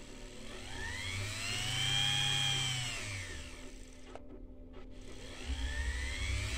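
Sewing machine electric motor, bare on the bench, run up on its foot-pedal speed control: a whine that rises in pitch, falls away as the motor slows, then rises again near the end. The repaired rotor spins freely, no longer binding now that the right shim washer is fitted.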